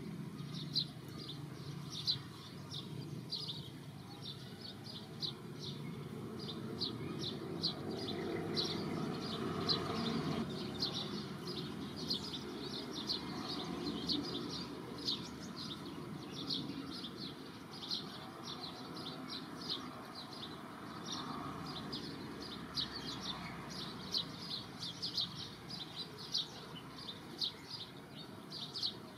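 Small birds chirping, short high chirps repeated about two or three times a second, over a low background noise.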